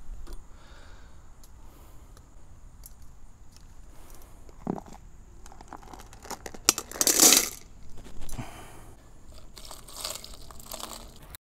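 Rock tumbler barrel being emptied into a stainless steel steamer pot: a knock, then wet polish slurry and tumbled stones gushing out about seven seconds in. Near the end, water is poured from a plastic pitcher over the stones.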